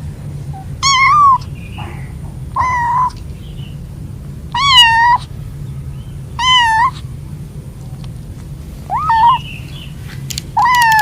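Young kittens meowing, about six high-pitched calls a second or two apart. They are calling for their mother and littermates, frightened at being away from the mother cat in a new place.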